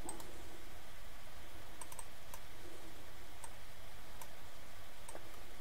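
Computer mouse clicks: about eight short, sharp clicks spread irregularly, some in quick pairs, over faint steady background noise.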